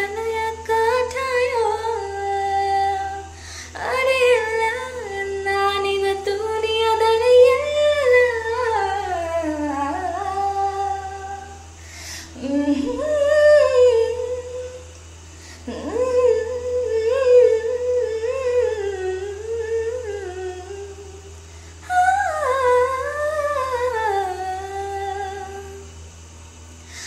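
A woman singing solo without accompaniment: one voice carrying a wavering melody in long phrases, with a few brief breaks for breath.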